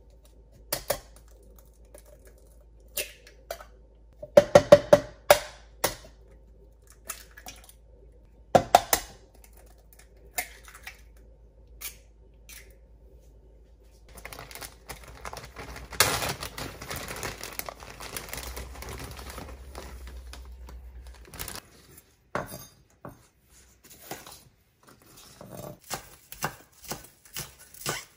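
Eggs cracked into a glass measuring cup: clusters of sharp taps and cracks, then a few seconds of rustling noise. Near the end, a chef's knife chops evenly on a wooden cutting board.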